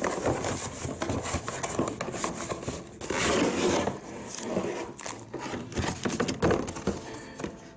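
Cardboard box and plastic packaging rustling and scraping, with scattered knocks, as a boxed oscillating multi-tool is handled and lifted out. The rustling is loudest about three seconds in.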